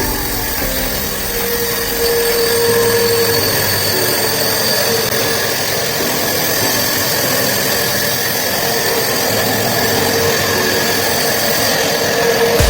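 Horizontal band sawmill running: a steady mechanical drone with a constant high whine, without change through the stretch.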